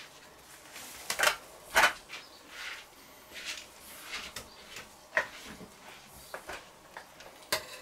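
Food being handled on a kitchen counter: a few sharp knocks and clicks, the loudest two close together about a second and a half in, with soft rustling in between as gloved hands lay turkey breast pieces onto a raw bacon weave.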